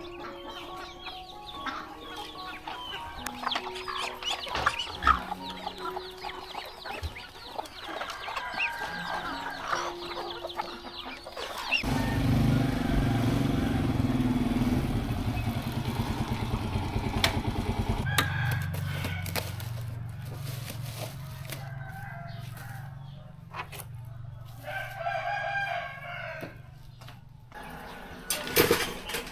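Chickens clucking and a rooster crowing for about the first twelve seconds. Then a small motorbike engine cuts in abruptly and runs loudly for several seconds before dropping to a lower steady hum that fades away.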